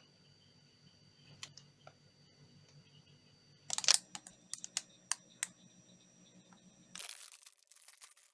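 Metallized plastic snack wrapper crackling as it is handled and turned over, with one loud crackle about four seconds in and a few sharp clicks after it. Near the end comes dense crinkling as the wrapper is torn open.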